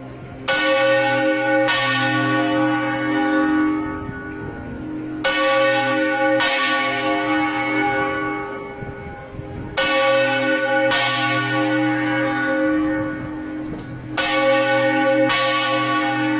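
Church bells tolling: strikes come in pairs about a second apart, each pair repeating every four to five seconds, each stroke ringing on with a long decay over a steady low hum.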